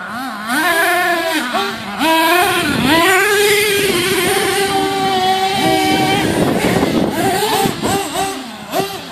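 Small nitro engines of radio-controlled monster trucks revving up and down as the trucks run on dirt, with a long held high rev from about three and a half seconds in.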